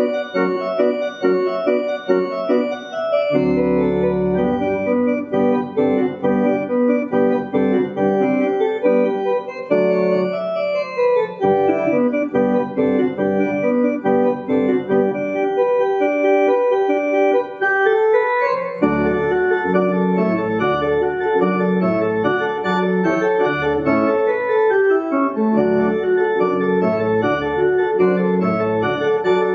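Electronic church organ playing a polyphonic piece in sustained chords. A deep pedal bass comes in a few seconds in, drops out for several seconds in the middle, and returns for the rest.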